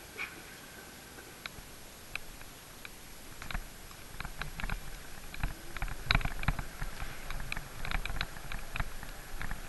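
Irregular clicks and rattles from a bicycle and the camera mounted on it. They grow denser, over a low rumble, from about three and a half seconds in as the bike gets moving over the pavement.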